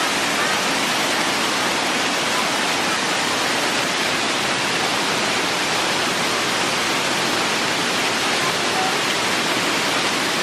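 Waterfall: a steady, loud rush of falling water that does not change.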